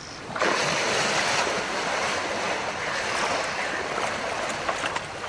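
Heavy splashing and churning of river water as a hippopotamus wades through the shallows. It starts suddenly about half a second in and eases off near the end.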